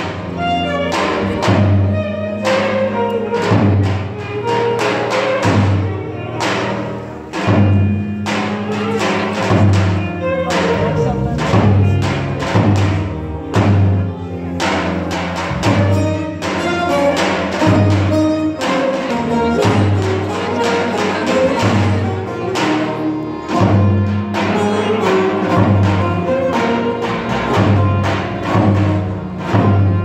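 Turkish folk music ensemble playing live, with plucked bağlamas over a low beat that comes about once a second.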